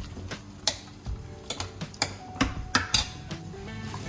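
A metal spatula knocking and scraping against a stainless steel kadhai as thick masala is stirred, in a dozen or so separate clicks and clanks. Background music with steady held notes joins from about halfway in.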